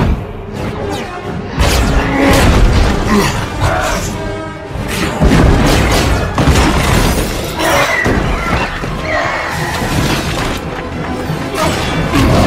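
Film score music mixed with loud action sound effects: repeated crashes, booms and shattering debris from a fight scene.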